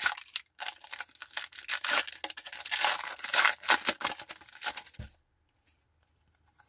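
Foil wrapper of a Pokémon booster pack being torn open and crinkled in the hands, a dense crackling that stops about five seconds in.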